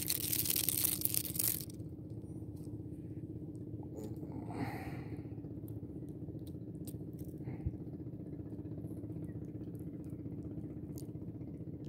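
A released needlefish splashes at the water's surface for over a second. Then a steady low engine-like hum goes on, with a few faint clicks and a brief swish about four and a half seconds in.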